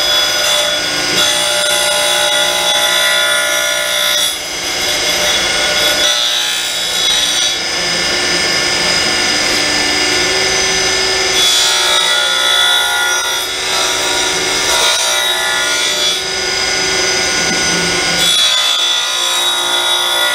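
Reid surface grinder's abrasive wheel grinding the steel back rail of the chuck with the side of the wheel: a steady, high grinding hiss and whine that shifts every few seconds as the table is traversed back and forth by hand.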